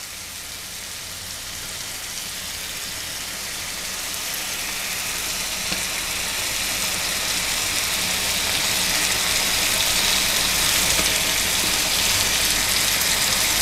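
Chicken pieces frying in a pan: a steady sizzle that grows gradually louder.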